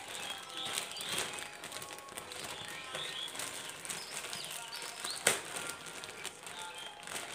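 Clear plastic poly bag crinkling and rustling as it is handled and pulled open, with a sharp crackling snap of the plastic a little over five seconds in.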